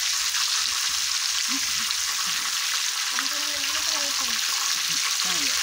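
Whole small frogs frying in hot oil in an aluminium wok, giving a steady sizzle.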